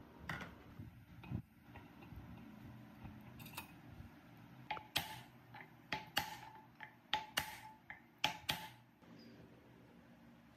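Hammer blows on a wooden block tapping an electric motor's end cover down into place on the housing: a run of about ten sharp knocks, each with a short ring, from about the middle of the clip to near the end. A few lighter clicks of metal tools come first.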